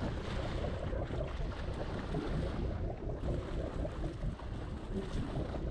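Wind buffeting the microphone over water splashing against a boat's hull: a steady rushing noise with a deep rumble.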